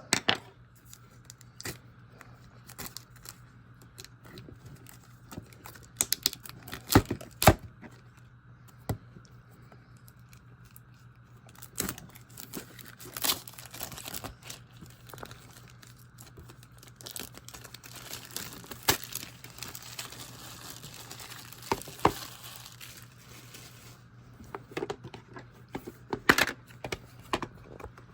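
Plastic shrink-wrap being torn and crinkled off a VHS clamshell case: irregular crackling with several louder sharp clicks and snaps.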